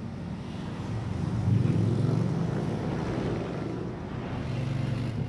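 Motorcycle engine running while being ridden along a road, its note growing louder about a second and a half in.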